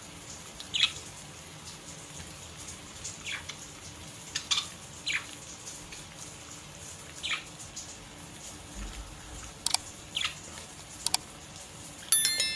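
Budgerigars chirping in short, falling calls every second or two over the steady hiss of a faucet running into a sink, with a louder, ringing chirp near the end.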